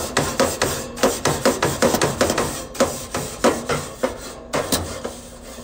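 Barbecue grill grates being scrubbed clean: quick, rhythmic scraping strokes, about four a second, that thin out near the end.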